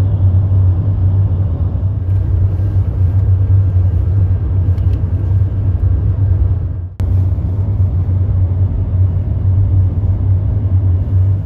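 Steady low rumble of road and engine noise heard inside a moving vehicle, briefly cutting out about seven seconds in.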